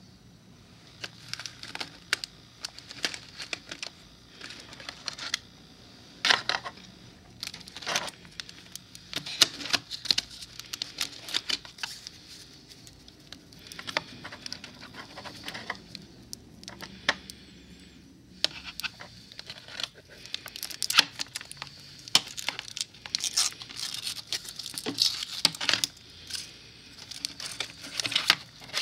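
Clear plastic gift-box packaging crinkling and crackling as it is handled and opened, with irregular sharp crackles coming in quick clusters.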